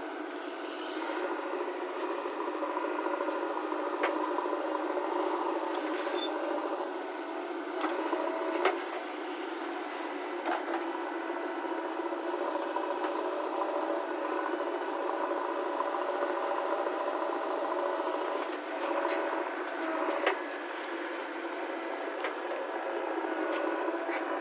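JCB backhoe loader's diesel engine running steadily, with a few sharp knocks from the working machine.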